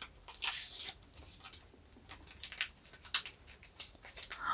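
Small plastic packaging crinkling and tearing open as a miniature toy is unwrapped: scattered light crackles and clicks, with a short rustle about half a second in.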